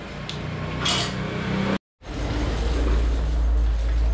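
Steady low rumble of busy background noise, with a couple of short metallic clinks, like a ladle against a steel pot, in the first second. The sound cuts out for a moment near the middle, and the rumble returns louder.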